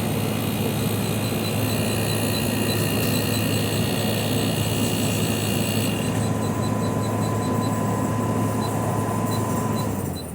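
Hisense 12,000 BTU window air conditioner running with a steady low hum and fan air noise. Near the end it is switched off: the hum cuts out and the noise falls away.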